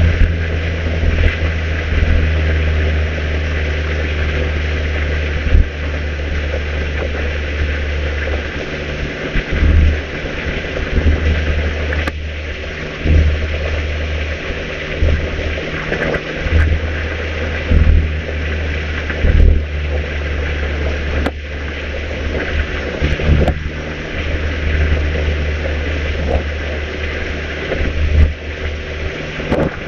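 Mazda MX-5 990S's 1.5-litre four-cylinder engine running at a steady cruise with the top down, under a strong low rumble of road and wind noise, with a few brief thumps.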